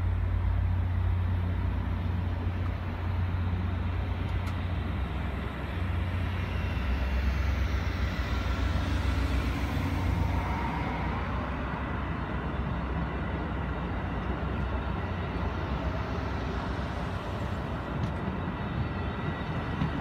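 VIA Rail passenger train rolling past: a steady rumble of the cars on the rails.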